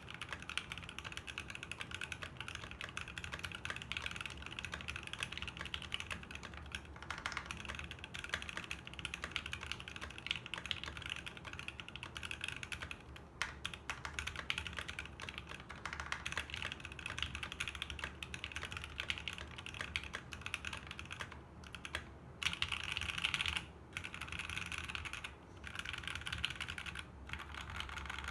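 Fast, continuous typing on a Fuji 65 mechanical keyboard with a brass plate, lubed and filmed Seal linear switches and GeekArk BOW keycaps. The keystrokes run together in a dense, even stream, with a few brief pauses near the end.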